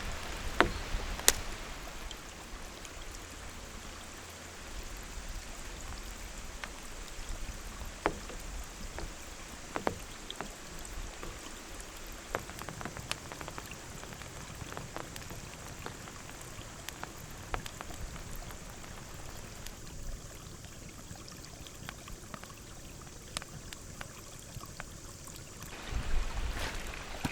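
Steady rain with scattered sharp drops tapping close by, over the continuous rush of flowing river water.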